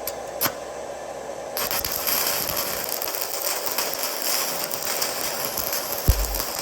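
Handheld stick welder's arc striking about a second and a half in and then crackling steadily as the bead is run, over a steady hum. Two clicks near the start and a thump near the end.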